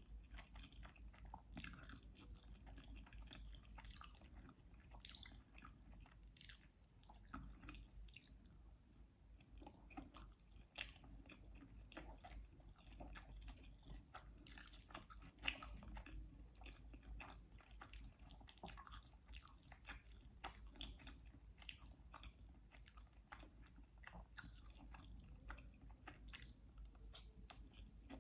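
Soft, close-miked eating sounds: a person chewing and biting food, with an irregular stream of small wet clicks and smacks. There is one sharper, louder bite about fifteen seconds in.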